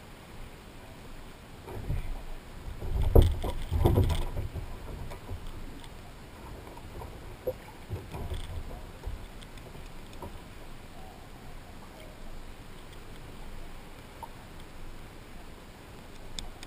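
Bumps and knocks on a plastic kayak hull as the paddler shifts and handles gear aboard, a loud cluster of thumps about two to four seconds in, then lighter scattered knocks, with water around the hull.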